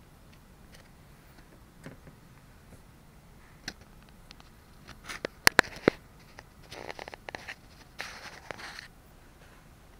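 Handling noise: scattered faint ticks, then three sharp clicks in quick succession a little past the middle, followed by two short spells of rustling.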